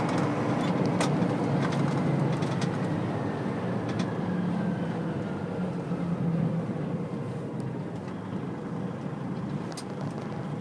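Road vehicle driving and slowing down: steady low engine and road rumble, with a faint whine that falls in pitch as the vehicle decelerates, and a few light clicks.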